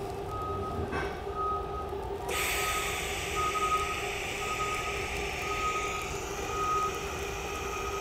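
TIG welding arc on 14-gauge stainless steel, struck by lift-arc about two seconds in and then running as a steady hiss while the joint is fused without filler at about 34 amps. A high beep repeats about once a second throughout, over a low steady hum.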